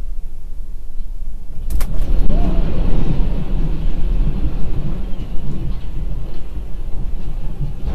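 Earthquake shaking a building: a steady low rumble, then a sharp crack about two seconds in, followed by louder rumbling and rattling.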